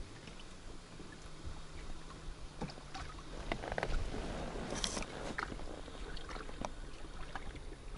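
Small waves lapping and slapping against an inflatable boat's hull, with scattered clicks and rustles of tackle being handled, and a brief louder rush of water about halfway through.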